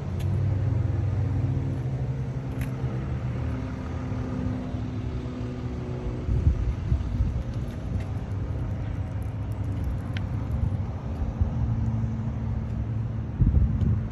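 Mercedes C63 AMG's V8 idling with a steady, deep exhaust rumble. Wind buffets the microphone near the end.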